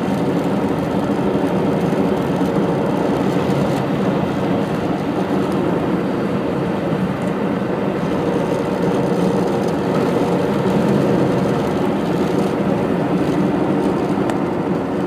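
Steady drone of a 1998 Saturn being driven, its engine and road noise heard from inside the cabin.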